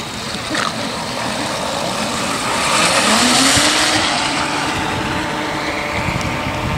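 A motor rising in pitch as it passes, over a steady hiss of wind and water, with the hiss swelling briefly midway.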